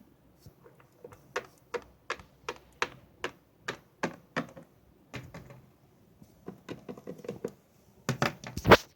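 Small plastic toy figures tapped and hopped along a hard surface: a run of sharp clicks, about two a second and unevenly spaced, with a louder cluster of knocks near the end.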